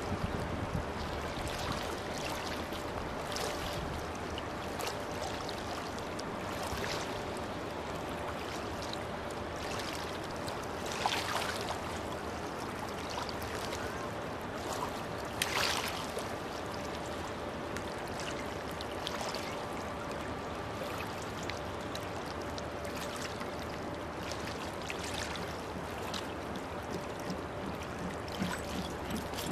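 River water lapping and splashing at the bank, a steady wash of noise with a faint constant hum underneath. Two short louder splashes come near the middle.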